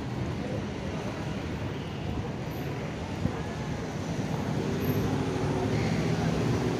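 Steady city street traffic noise, a low rumble of vehicles, with a faint engine hum coming in during the second half and the level rising slightly toward the end.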